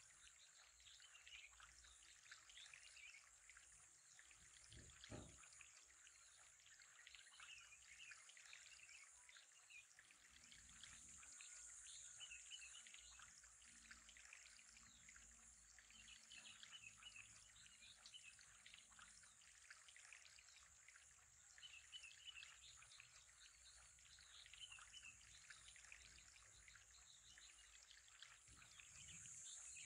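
Near silence: faint background ambience with a steady high hiss and soft chirps recurring every few seconds, and one faint low thump about five seconds in.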